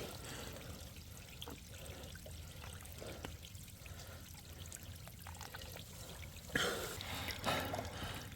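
Rainwater trickling and dripping, with scattered small drips. A louder surge of noise comes about six and a half seconds in, and another about a second later.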